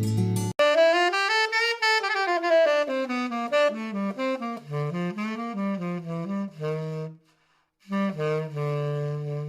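A solo wind instrument playing a melody: a quick run up and then down, a short pause, then a few notes ending on a long held low note. The end of an acoustic guitar strum cuts off about half a second in.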